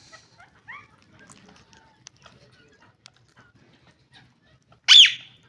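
Green ringneck parrots chirping softly with a few short calls, then one loud, sharp screech near the end.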